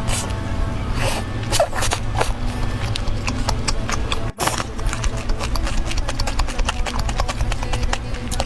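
Close-up eating sounds: crunching and chewing of fried chicken, many quick crackles over a steady low hum, broken by a brief gap about four seconds in.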